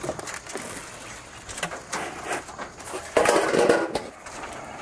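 Knocks, clicks and rattles of a wooden chicken coop's door and latch being handled, with one louder, longer clatter about three seconds in.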